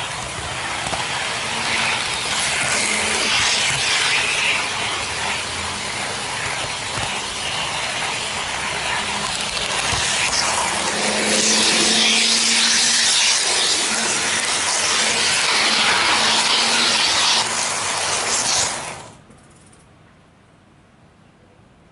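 N-gauge model train running on garden track, heard from a camera riding on it: a loud, steady rattling hiss of wheels on rail and motor, with a faint hum. It stops suddenly about 19 seconds in as the train halts, leaving only faint outdoor background.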